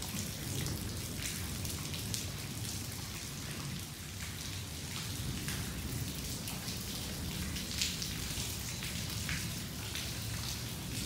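Heavy sudden downpour: rain falling steadily, with many separate drops ticking close by over a low rumble.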